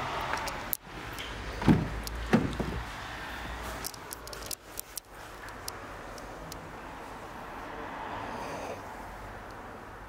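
Two sharp knocks close together about two seconds in, over a steady background hum.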